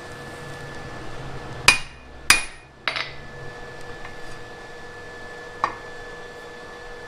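Hammer striking a chisel into a red-hot flat iron bar: three ringing metal blows about half a second apart, then a single lighter blow a few seconds later.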